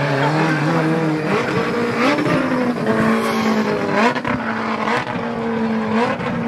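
Four-rotor rotary engine of a Nissan GT-R R35 drift car running hard. Its note steps up and down several times as the throttle is worked, with tyre squeal from the slide.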